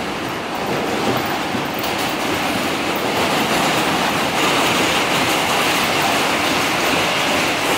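New York City subway train running at speed, heard from inside the car: a steady rumble and rattle of wheels on rail that grows louder about three seconds in, with a rising hiss.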